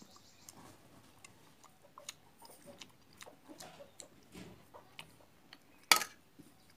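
A person chewing pieces of papaya, with small wet clicks and smacks scattered through, and one sharp knock about six seconds in.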